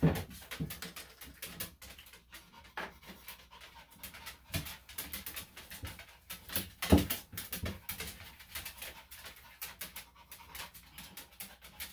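Senior Maltese–Shih Tzu dog panting, with a couple of knocks, one right at the start and a louder one about seven seconds in.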